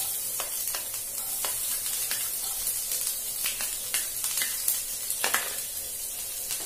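Chopped red onion sizzling in hot oil in a frying pan, with scattered clicks of a spoon against the pan.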